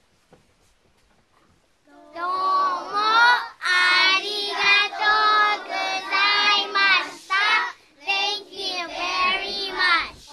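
A group of young children singing a song together in Japanese, starting about two seconds in after a brief hush, with short breaks between phrases.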